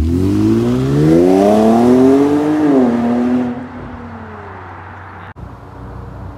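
Kia Stinger GT's twin-turbo V6 through Ark downpipes and an MBRP exhaust with added resonators, accelerating hard with a rising note, shifting up about two and a half seconds in, then fading as the car pulls away. After a sudden break near the end, the engine idles with a steady low note.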